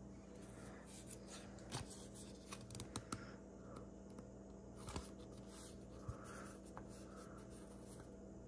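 Faint rustling of trading cards slid one behind another by hand, with a few soft clicks, over a steady low hum.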